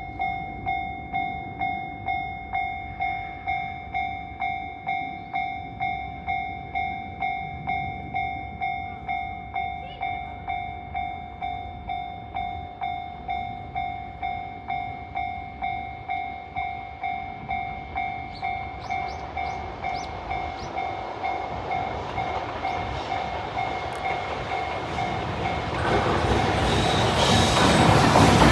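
Japanese level-crossing warning bell ringing, a steady repeating electronic ding a little faster than once a second. Behind it an approaching freight train hauled by a JR Freight EF210 electric locomotive grows louder over the last several seconds.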